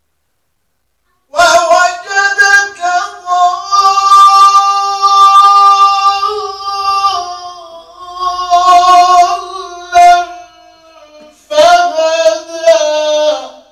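A male Quran reciter chanting in melodic tajweed style into a microphone: long held high notes with ornamented turns, beginning about a second in. A short breath near the end separates two phrases.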